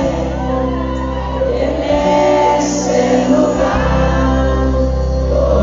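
A live romantic grupera band playing a slow ballad: sustained keyboard chords over bass and drums, with a male voice singing. The chords and bass change twice.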